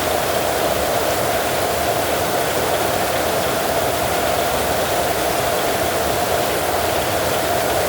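Heavy rain falling steadily: an even, unbroken hiss with no thunder claps.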